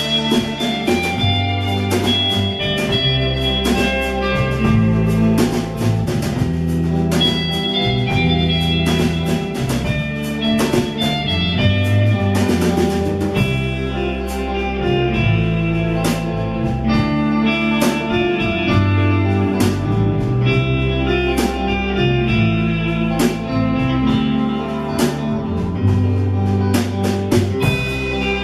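Band music: guitar over a moving bass line and a steady drum beat.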